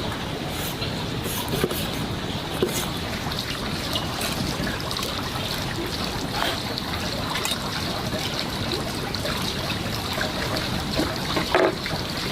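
Water running or trickling steadily, with a few light knocks near the end.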